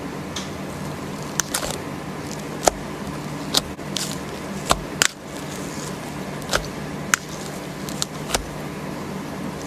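Slime being worked by hand, giving about a dozen irregular sharp pops and clicks over a steady low hum.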